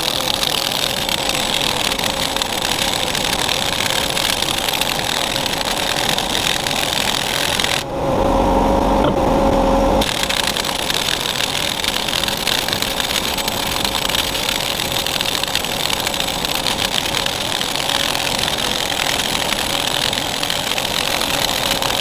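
Earthquake pneumatic impact wrench hammering continuously on a seized bolt, a dense rapid rattle, as the bolt begins to come loose. About 8 seconds in the hammering stops for roughly two seconds and a lower humming tone takes its place.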